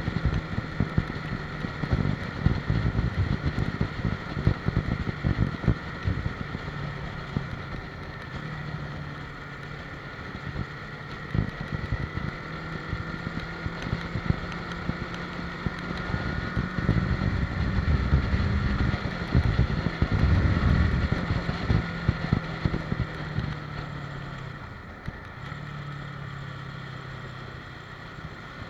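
Motorcycle engine running steadily while riding at cruising speed, with heavy wind buffeting on the microphone.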